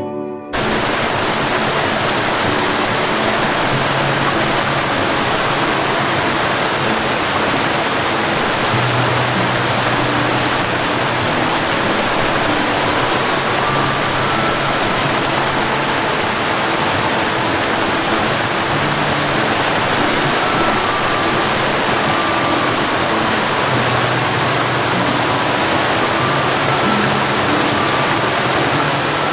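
Waterfall cascading down a mossy rock face: a loud, steady rush of falling water that starts abruptly about half a second in. Faint musical tones sound now and then beneath it.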